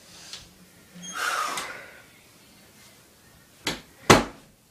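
Two short, sharp knocks near the end, about half a second apart, the second louder, after a soft rushing sound about a second in.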